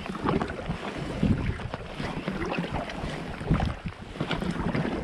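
Wind gusting over the microphone in uneven buffets, with water lapping and splashing against a canoe.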